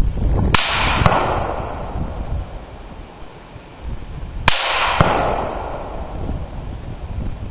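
Two single shots from an M-16A3 rifle firing 5.56mm, about four seconds apart. Each crack is followed about half a second later by a second sharp crack and a long echoing tail.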